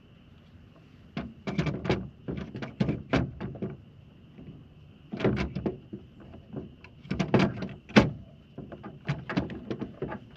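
Plastic clicks, knocks and rattles from a new fuel filter element being pushed and seated into its plastic filter housing and handled against a metal tailgate. They come in irregular clusters of sharp taps, starting about a second in.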